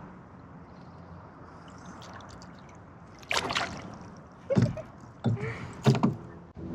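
Water splashing around a small boat, in four short splashes over the second half.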